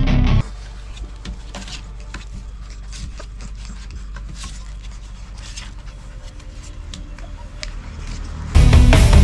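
Rottweiler puppies nosing and pawing right at the camera: scattered small clicks and scratchy rubbing against it over a low hum. Loud music with distorted guitar cuts off about half a second in and comes back loud near the end.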